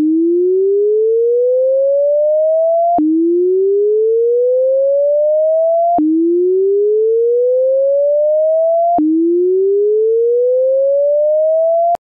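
Loud synthesized alert tone: a single pure tone sweeping steadily upward in pitch for about three seconds, then dropping back with a click and rising again, four times over.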